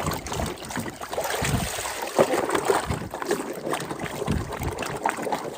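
Water sloshing and splashing irregularly as a toy cement-mixer truck is washed by hand, with a couple of dull knocks.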